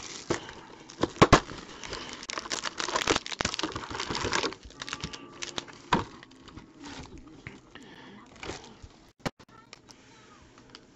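Plastic wrapping being torn and crinkled off a box of trading cards: busy tearing and crinkling for the first four and a half seconds or so, then quieter scattered clicks and rustles as the box and cards are handled.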